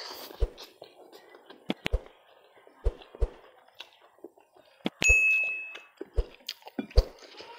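Close-up eating sounds as fried noodles are picked up by hand and eaten: soft chewing and slurping with scattered clicks and low thumps. About five seconds in, a single bright bell-like ding rings for under a second: a notification-bell sound effect.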